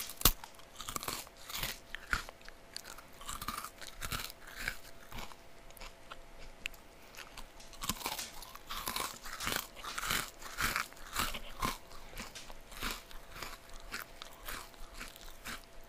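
A person biting and chewing a Double Stuf Oreo cookie, with irregular crisp crunches throughout and one loud crunch right at the start.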